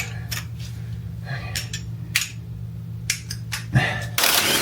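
Scattered metallic clicks and clinks of hand tools on car parts over a steady low hum, ending in a short loud rush of noise near the end.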